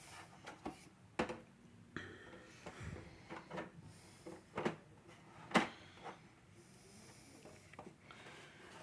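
Hard plastic toy parts and packaging being handled: an irregular run of short clicks and taps, the loudest two about four and a half and five and a half seconds in.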